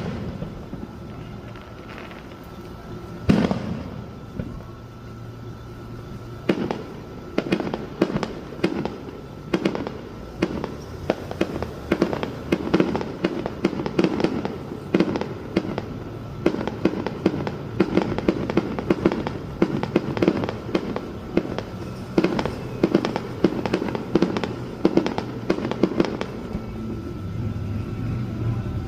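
Fireworks exploding: a single sharp bang a few seconds in, then from about six seconds a rapid, unbroken run of bangs, several a second, each followed by a rolling echo.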